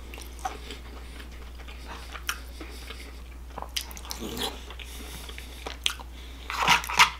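A person eating a KFC Famous Bowl with a spoon from a plastic bowl: scattered small clicks and scrapes, then chewing a mouthful, with a few louder mouth sounds near the end.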